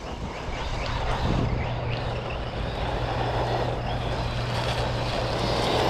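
Losi Lasernut U4 RC rock racer running, its brushless motor whining up and down over a steady drivetrain noise. Its rear drivetrain is failing: the rear diff is locking up.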